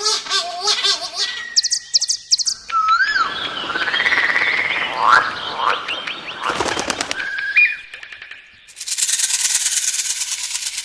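Assorted animal calls spliced one after another: quick chirps and whistled glides, then noisier calls, and about nine seconds in a fast, dense, high trill.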